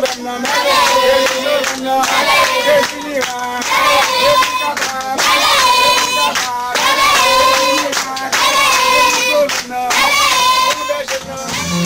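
High-pitched singing of a melody, with long held notes and brief pauses between phrases.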